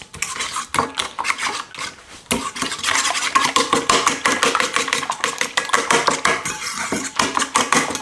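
A metal fork beating an egg mixture on a plate: quick, repeated clinks and scrapes of metal on crockery, coming thicker and faster from about two seconds in.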